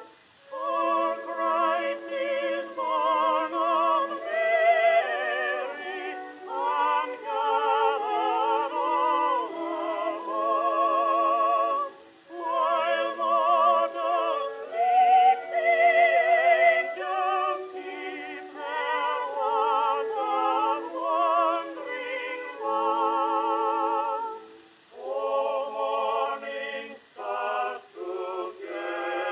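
Background music: operatic singing with a wide vibrato, in long held phrases broken by short pauses.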